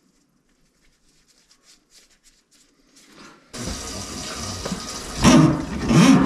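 Water rushing through a drain, starting suddenly about three and a half seconds in and surging louder in pulses near the end. Before that there are only faint scattered ticks.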